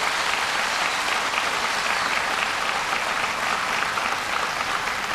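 Audience applauding steadily, the clapping of many hands blending into an even patter.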